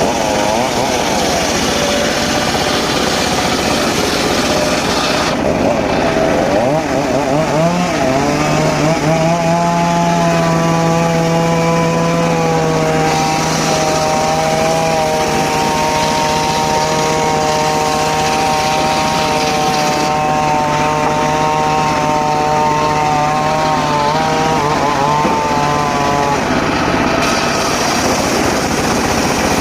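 An engine-driven circular saw cuts teak wood. The engine runs steadily throughout, and a steady hum joins it from about 8 seconds in until shortly before the end.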